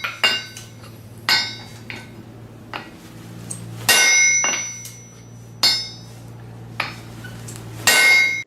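Hammer striking metal in an uneven series of blows, about five heavy ones and several lighter taps, each leaving a metallic ring, over a steady low hum. The sound cuts off abruptly near the end.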